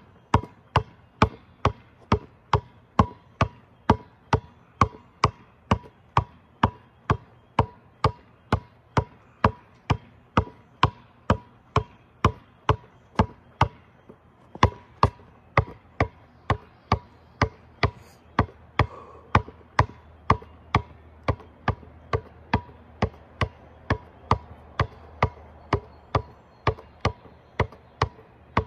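Basketball dribbled continuously, a steady run of sharp bounces about two to three a second, each with a short ring.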